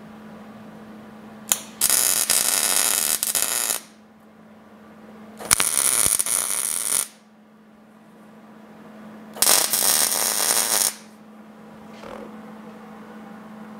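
MIG welder laying three tack welds, steel mount ring to steel sheet: three bursts of arc, each about one and a half to two seconds long, with a couple of seconds of pause between them.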